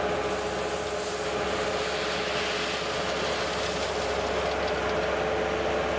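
Bobcat 864 skid steer's diesel engine running steadily, with a steady whine over it.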